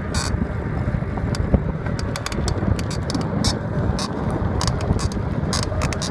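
Cannondale Rush 29er mountain bike being ridden, giving short, high squeaks at irregular intervals over a steady low rumble.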